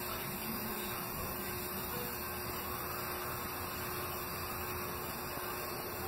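Ceiling fan running: a steady whir with a faint constant hum underneath.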